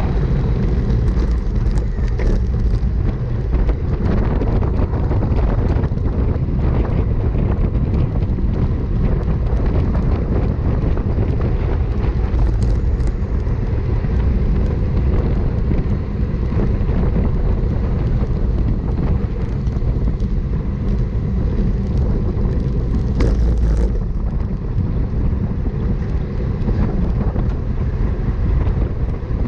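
Wind rushing over a bicycle-mounted camera's microphone while riding at about 25 mph: a steady, loud low rumble, with a few faint clicks from the bike.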